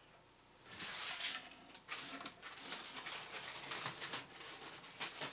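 Hands working the black 3D-printed plastic parts of a small hexapod robot frame: irregular rustling and scraping with light plastic clicks as wires are pushed down into the body. It starts about a second in, after a brief hush.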